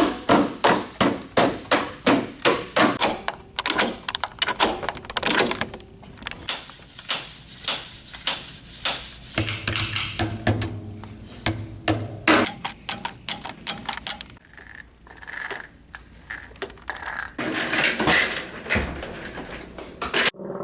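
A run of sharp knocks and impacts, several a second, with a stretch of hissing noise near the middle.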